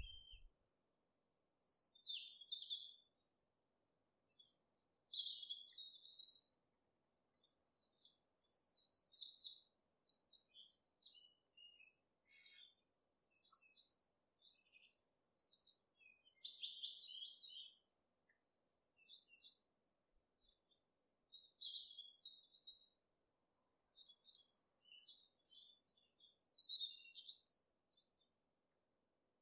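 Birdsong: short, high chirping phrases a second or two long, one after another with gaps of about a second.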